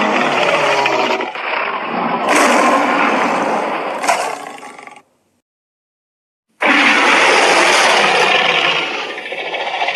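King Kong monster roar sound effects: one long roar fading out about five seconds in, then after a second and a half of silence a second roar starts suddenly.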